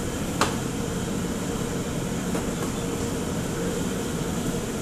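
Steady drone of a restaurant kitchen's exhaust hood fan over the wok stoves, with a steady hum through it and a single sharp knock about half a second in.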